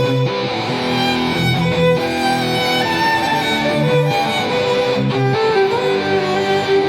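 Instrumental music: a sustained string melody over guitar accompaniment, with no speech.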